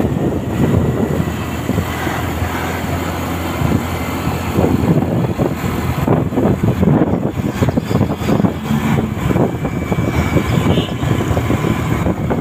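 Riding noise on a moving two-wheeler in city traffic: a steady low rushing drone with wind buffeting the microphone, the buffeting growing choppier from about halfway.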